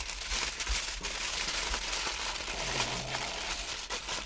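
Aluminium foil crinkling and rustling as hands fold and press it around fish to wrap them, a dense crackle of small crisp rustles.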